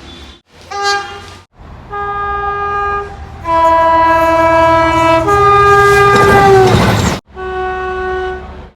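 Train's two-tone horn: a short blast, then a high-low-high three-note call whose last note slides down in pitch as the noise of the passing train swells (Doppler), then another horn note after an abrupt cut.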